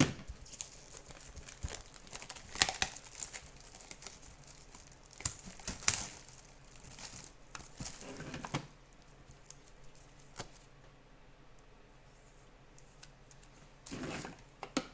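Crinkling and tearing of plastic card sleeves and packaging as trading cards are handled, in irregular bursts, with a quieter stretch of a few seconds in the second half.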